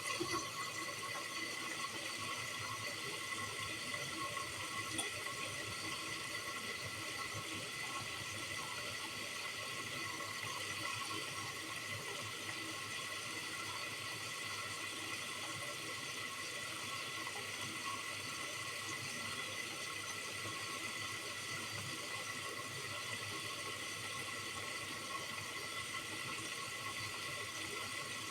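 Bosch Series 4 washing machine taking in water at the start of its final rinse: a steady rush of water into the machine, with a faint thin whistle running through it.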